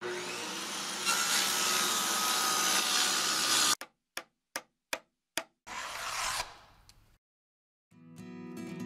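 Logo-intro sound effects: almost four seconds of steady, harsh cutting noise, then five sharp knocks about two a second, and a short burst of noise that fades away. After a brief silence, guitar music starts near the end.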